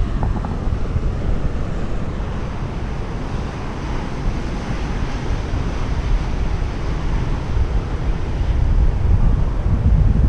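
Wind buffeting the camera microphone, a steady low rumble that swells near the end.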